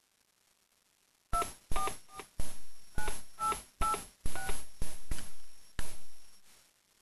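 Number being dialed on a Youngtel animatronic dog speakerphone's keypad: about ten key presses starting over a second in. Each press is a sharp click with a short two-tone DTMF beep.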